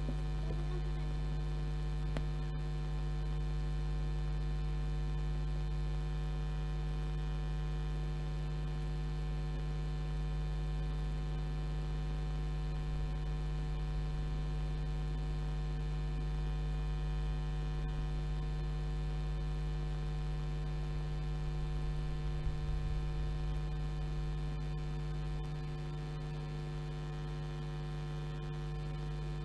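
Steady electrical mains hum, a low buzz with a row of higher overtones, a little quieter near the end.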